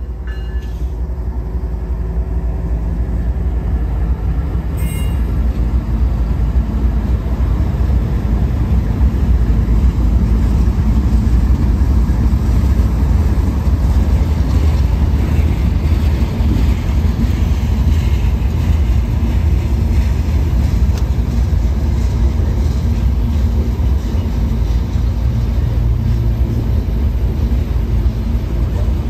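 CSX freight train passing close by: diesel locomotives run past, followed by a string of hopper cars rolling and clattering over the rails. A steady low rumble that builds over the first few seconds.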